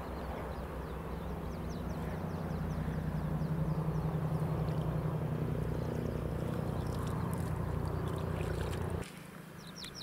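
Steady low engine drone that grows a little louder and then cuts off abruptly about nine seconds in.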